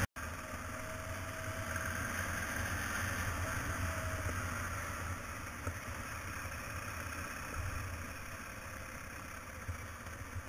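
Motorcycle ridden along a gravel road, its engine running steadily with road and wind noise. It gets slowly quieter toward the end.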